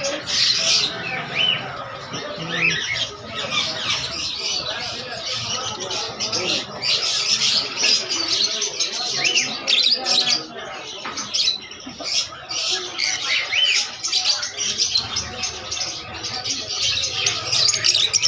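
Many birds chirping and squawking at once, short overlapping calls with no pause.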